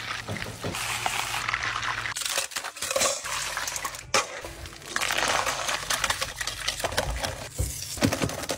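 Butter sizzling and foaming in a steel pan as it browns, then metal clinks and scrapes of steel bowls and ice, and a wire whisk scraping around a metal bowl as the cooled brown butter is whipped.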